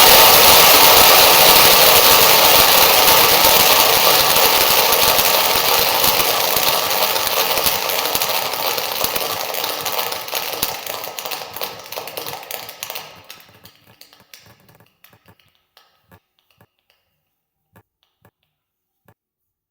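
Large audience applauding, several crowds layered together: dense clapping that fades steadily, thins out into scattered individual claps about two thirds of the way through, and ends with a few lone claps.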